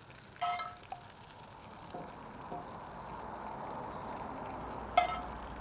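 Breaded chicken cutlet frying in butter and olive oil in a cast-iron skillet: a steady, quiet sizzle. A metal spoon clinks against the pan about half a second in and again near the end as tomato sauce is spooned on.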